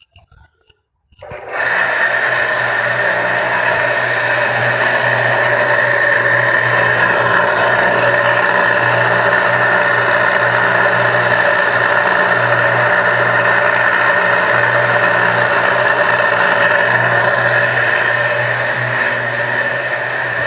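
Electric water pump motor switched on about a second in and running steadily with a loud, harsh hum and whine, an "infernal noise" that comes from its two small worn ball bearings, which are due to be replaced.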